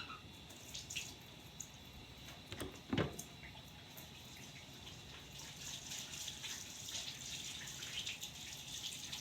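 Tap running at a sink while hands are washed, with a knock about three seconds in; the water hiss grows louder in the second half.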